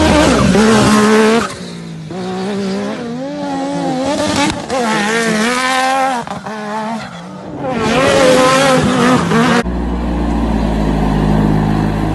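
Side-by-side UTV engines revving hard in a run of short cuts, the pitch climbing and falling as the throttle is worked. About ten seconds in it switches abruptly to a steadier, deeper engine note.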